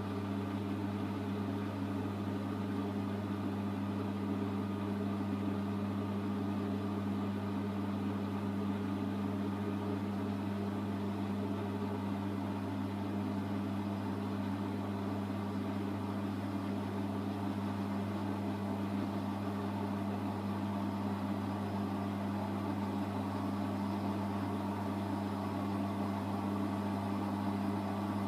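Bosch WAY32742 front-loading washing machine running its wash, a steady low motor hum under a restless swishing noise from the water and laundry in the drum.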